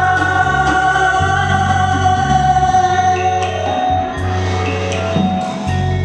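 A man and a woman singing a duet over backing music, holding a long note that ends about three and a half seconds in; the instrumental music plays on after it.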